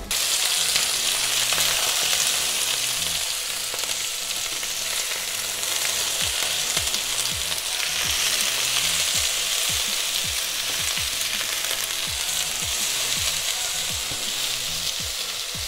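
Sliced potatoes frying in hot oil in a frying pan, a steady sizzle. From about six seconds in, a spatula stirs and turns them, adding repeated short scraping strokes under the sizzle.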